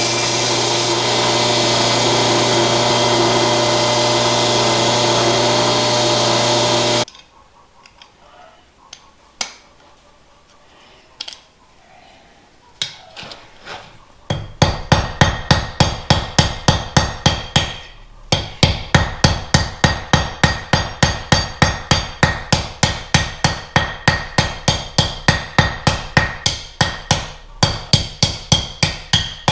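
Blacksmith's hammer forging steel: after a steady machine drone cuts off about a quarter of the way in and a quiet stretch with a few separate knocks, fast, even hammer blows ring out, about three to four a second, until the end.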